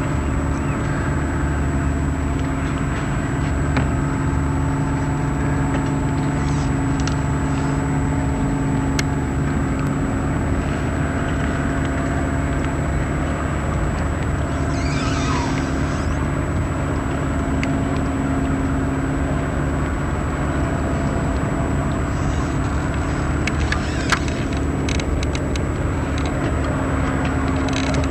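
Boat engine running steadily at an even speed, a constant low drone.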